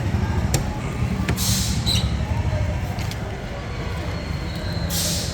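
A steady low mechanical rumble with a few faint clicks, and two short hisses, one about a second and a half in and one near the end.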